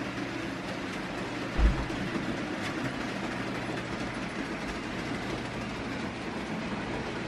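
Model train running on the layout's track: a steady rumble of wheels with a low steady hum. There is a single low thud about one and a half seconds in.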